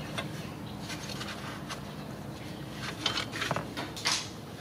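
Socket wrench on a long extension working a rusted nut on a front steering knuckle: faint metal clicks and scraping, with a quick run of clicks about three seconds in.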